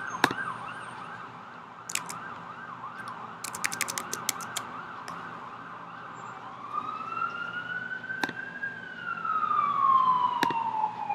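Emergency vehicle siren sounding: a fast warbling yelp that changes about six seconds in to a slow wail, rising and then falling in pitch. A few sharp clicks sound over it.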